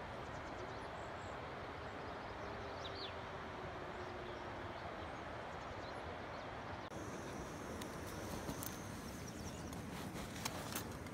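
A single distant wolf howl: one long steady note lasting about four seconds that sags slightly in pitch at its end, over a steady rushing background. Near the end come a few clicks and rustles as a pack is handled.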